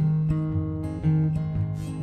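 Acoustic guitar strumming chords in a country song, with no singing.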